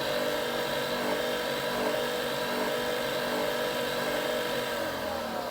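Nespresso Vertuo Next capsule coffee machine whirring steadily after its button is pressed, then winding down near the end. It is a brew attempt on a faulty machine that stops with its orange light blinking twice and makes no coffee.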